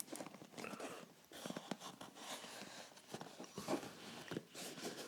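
Faint, irregular small clicks, taps and rustles of stripped shoe parts (leather, cork and board pieces) being handled and moved about on a work surface.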